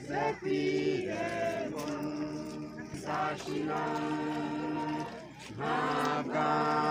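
Voices singing a slow song in long held notes, with a brief pause about five seconds in.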